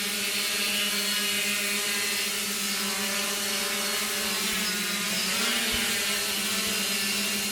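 Multicopter drone hovering, its electric motors and propellers giving a steady hum, with a brief waver in pitch a little past halfway.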